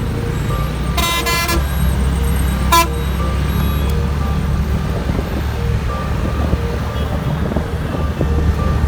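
Vehicle horn honking twice, a blast of about half a second and then a short toot, over the steady low rumble of road traffic and engines.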